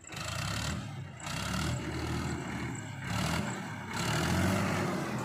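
Heavy diesel machinery engine revving up and easing off in about four surges of roughly a second each, with a hiss over it.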